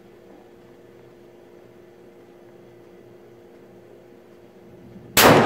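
A faint steady hum, then near the end a single sharp shot from a Tikka T3x bolt-action rifle in .223 Remington, with a ringing tail.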